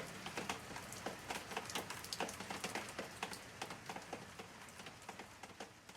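Rain falling, with many irregular drops pattering sharply over a steady hiss, slowly fading away.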